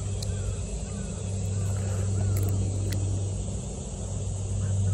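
Steady low hum under an even outdoor background noise, with a few light clicks and faint short chirps.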